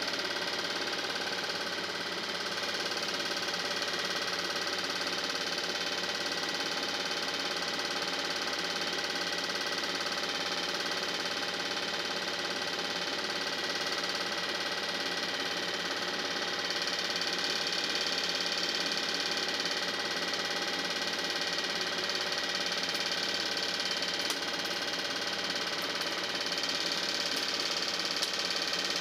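Film projector running with a steady mechanical whirr and clatter, unchanging throughout.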